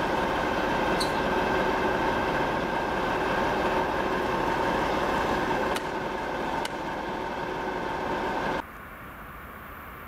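Ludmilla-type diesel locomotive engine running with a loud, steady drone and a few faint clicks. Near the end it cuts off abruptly to a quieter, even outdoor hiss.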